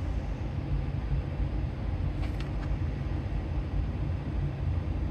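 Steady low background rumble, with a couple of faint light clicks about two seconds in.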